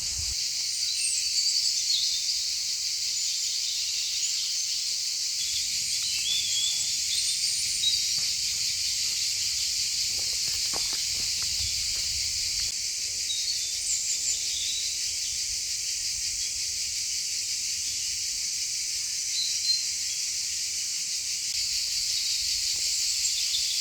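Steady, high insect chorus, with short bird chirps scattered over it and a few faint clicks about ten seconds in.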